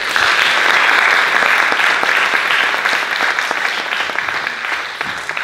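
Audience applauding, starting all at once and easing off slightly near the end.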